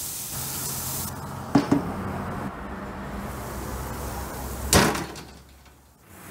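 Shrimp sizzling on the hot grates of a gas grill, with a couple of light clicks about a second and a half in and a single sharp knock near the end, after which the sound fades away.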